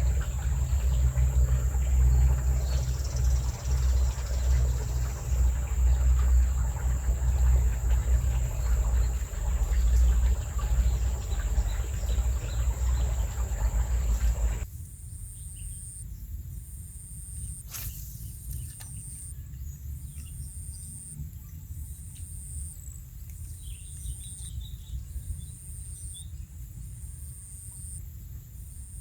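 A loud low rumble fills the first half, then stops abruptly. After it, quieter outdoor ambience carries an insect chirping in regular pulses about once a second, with one sharp click soon after the change.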